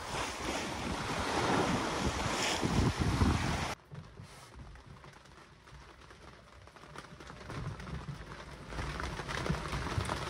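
Wind and sea rushing past a timber couta boat under sail, with wind buffeting the microphone. About four seconds in it cuts off suddenly to a much quieter low rumble with faint ticks, which builds again near the end.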